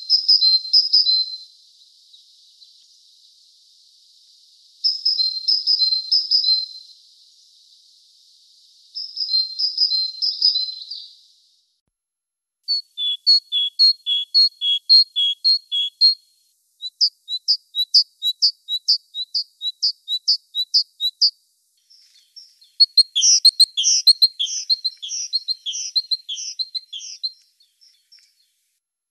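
Great tit singing: six bouts of quickly repeated high notes, separated by short pauses, the later bouts longer and faster.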